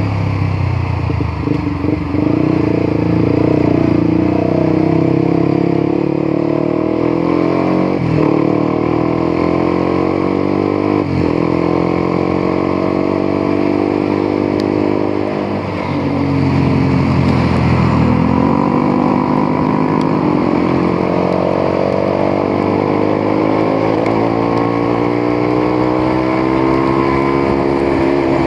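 Honda CBR150R's single-cylinder engine running while riding, its pitch rising and falling with throttle and gear changes. About halfway through the revs drop briefly, then pull up again.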